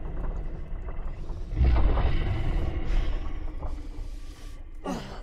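Sound effect of a magical blast bringing down a stone wall. A deep rumble swells suddenly into a loud blast and crash about a second and a half in, then slowly dies away.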